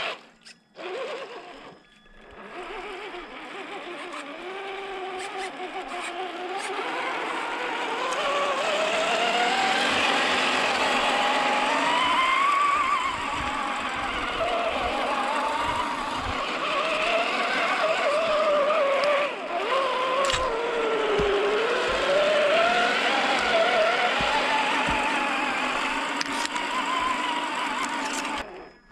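Electric motor and geared drivetrain of a Carisma SCA-1E RC scale crawler whining, the pitch rising and falling smoothly with the throttle. It cuts out twice briefly in the first two seconds, and there are scattered small knocks throughout.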